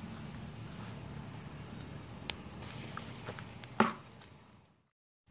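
Night insects chirring steadily in two high, even tones over a soft background hiss, with a few faint clicks and one sharper knock about four seconds in. The sound then fades out to silence just before the end.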